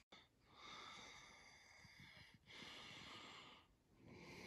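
Faint, close breathing through the nose: three breaths in a row, each lasting a second or two.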